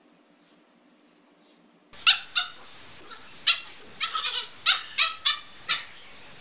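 Near silence, then about two seconds in a puppy starts giving short high-pitched yips, about nine in quick succession.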